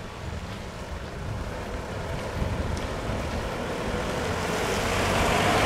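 A bus approaching on a wet road: engine rumble and tyre hiss growing steadily louder.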